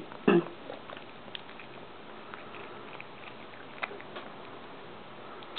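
A cat chewing Dorito chips: scattered small crunches and clicks, the loudest just after the start.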